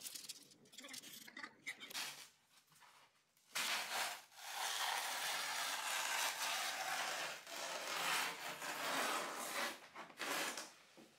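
Large sheets of paper rustling and rubbing as they are handled, a dense scratchy noise that starts about three and a half seconds in and carries on with short pauses.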